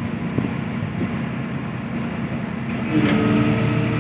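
A ship's deck crane machinery running with a steady low drone during cargo handling, growing louder for a moment about three seconds in.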